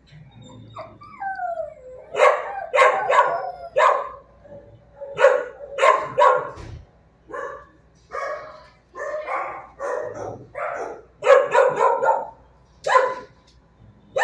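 A dog barking over and over in short, uneven volleys, with a high, wavering whine about a second in.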